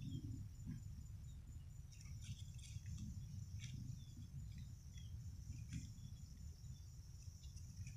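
Faint outdoor ambience: insects trilling steadily at a high pitch, over a low rumble, with a few short high chirps and ticks scattered through.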